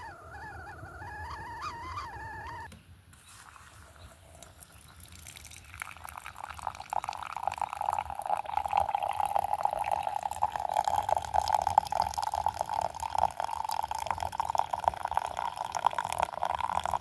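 Water for coffee splashing and gurgling in a steady stream, starting about six seconds in and growing louder. It is preceded by a brief wavering call lasting a couple of seconds at the start.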